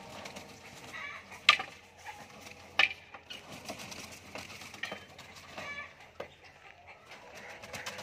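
Caged fowl clucking and calling in short repeated notes, with two sharp knocks about one and a half and three seconds in.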